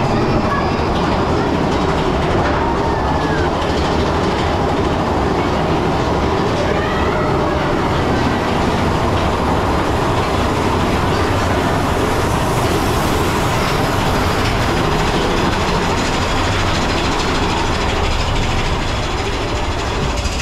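Big Thunder Mountain Railroad mine-train roller coaster running along its track: a loud, steady rumble and clatter of the cars' wheels on the rails.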